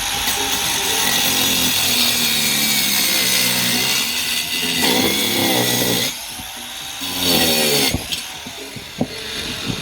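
A masonry power saw cutting brick: steady, loud grinding for about six seconds, a drop, then a short second cut around seven seconds in. A few sharp knocks come near the end.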